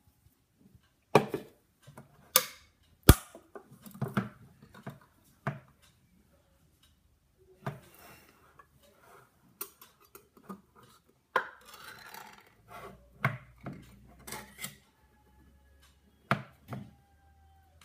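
Irregular knocks, clicks and clatter of a clear plastic blender jar being handled, with short scraping and rustling in between.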